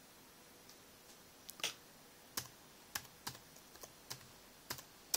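Typing on a Samsung NC10 netbook's keyboard: about ten separate, unevenly spaced keystrokes, the loudest near the end.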